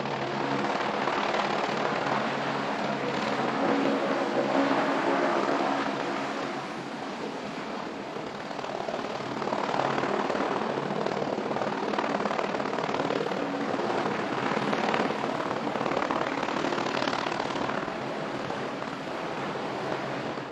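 Helicopter flying low close by, its rotor and turbine engine giving a steady loud drone. The sound dips a little about a third of the way in, then builds again.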